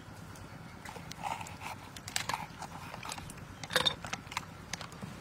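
Green bell pepper being seeded and cored by hand and knife on a wooden chopping board: scattered crisp snaps and crunches of the pepper's flesh with light knife scrapes and taps, the sharpest crackle a little under four seconds in.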